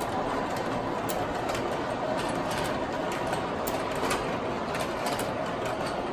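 MTH O-scale R62A model subway train running: a steady running noise with frequent sharp, irregular clicks.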